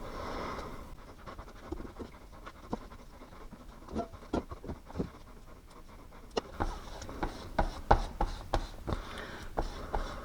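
Body filler being scooped and mixed with a stir stick: irregular scraping and tapping clicks that get busier about six and a half seconds in.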